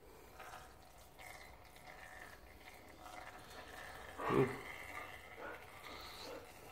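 Faint trickling and dripping of gearbox oil draining from a two-stroke dirt bike into a drain pan, the flow nearly finished. A brief louder noise comes about four seconds in.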